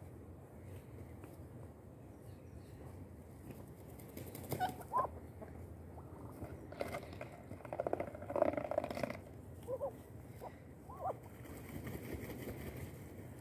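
Ducks mating: a few short, rising duck calls about four and a half seconds in and again near ten and eleven seconds, with a louder rough stretch of calling and feather rustling around eight seconds.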